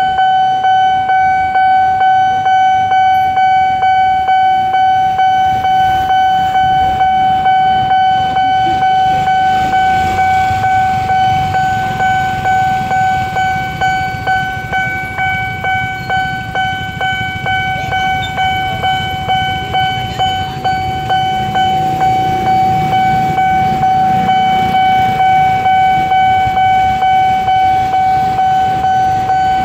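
Railway level-crossing warning bell ringing in a fast, even repeat of one pitched tone, sounding because a train is approaching. A low rumble runs underneath and grows louder in the second half.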